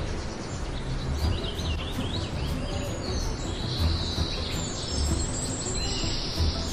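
Birds chirping: short sweeping calls over a steady low rumble, with a high, even buzzing band joining about halfway through.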